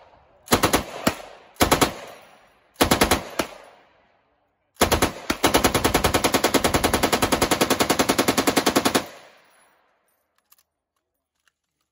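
Belt-fed machine gun firing three short bursts of a few rounds each, then one long sustained burst of about four seconds. Each burst trails off in echo.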